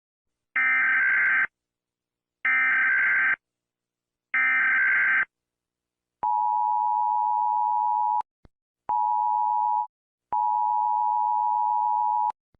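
US Emergency Alert System alarm: three short bursts of screechy digital header data, evenly spaced, followed by the steady attention tone, which sounds in three stretches, about two seconds, then one, then two.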